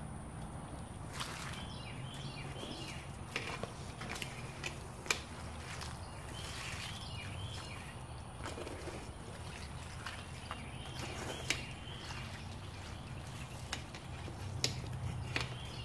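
Metal skimmer moving through the broth of a crawfish boil in a large pot: soft sloshing with a few sharp clicks of metal against the pot.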